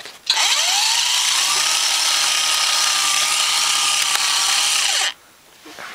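Haynes build-your-own model engine turned over by its small electric motor: a motor whine that rises in pitch over the first second or so and then holds steady, over a busy whirring rush from the turning mechanism. It stops suddenly about five seconds in.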